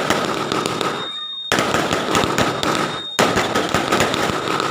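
Aerial fireworks going off in rapid crackling and popping bursts of shells and firecrackers. The sound cuts out briefly about a second in, then resumes.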